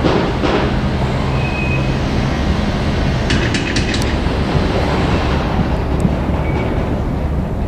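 Freight train hauled by an EF81 electric locomotive rolling past, a steady rumble of wheels on the rails, with a quick run of sharp clicks about three and a half seconds in.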